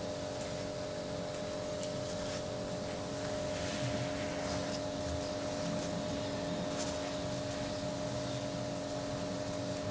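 Soft rubbing and tearing as the skins of boiled potatoes are peeled off by hand, over a steady hiss and low hum, with a few faint clicks.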